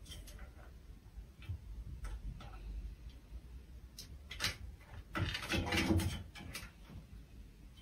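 A cat climbing a bunk-bed ladder: scattered light clicks and taps of its claws and paws on the rungs, with a louder rattling clatter of the ladder about five to six seconds in.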